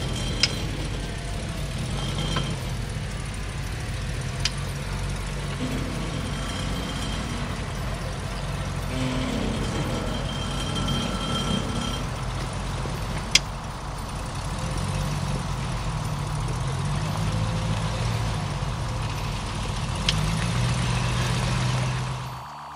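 Land Rover Discovery's engine running at low revs as it crawls over rocks and a log, its pitch rising and falling with the throttle. A few sharp clicks are heard along the way. The sound cuts off just before the end.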